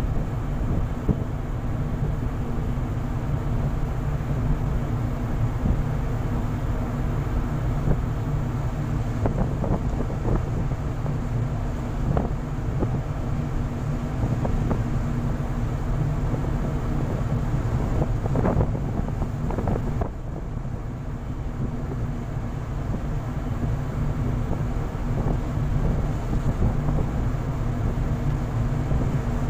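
Steady low rumble and hum of a ship's engines underway, mixed with wind buffeting the microphone and the rush of the sea, with a few brief gusts.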